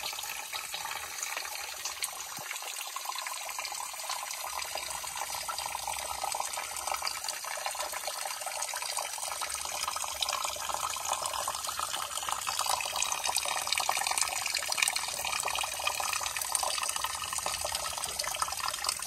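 Water trickling and splashing steadily over wet limestone, a continuous hiss full of small drips, a little louder in the second half.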